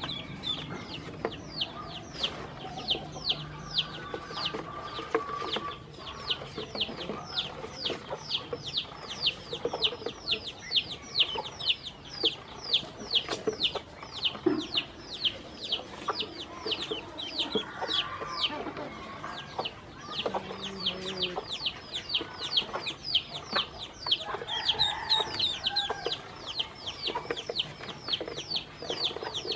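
A group of ducklings peeping continuously: a steady stream of short, high peeps, each sliding downward in pitch, about three a second.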